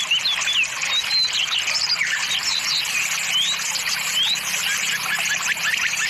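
Birds chirping and calling in short whistled glides over a steady hiss. Near the end, one bird gives a quick run of short, repeated chirps, several a second.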